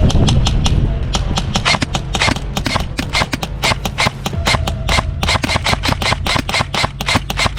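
Airsoft guns firing: strings of rapid, sharp pops that come several to the second and grow denser about a second in.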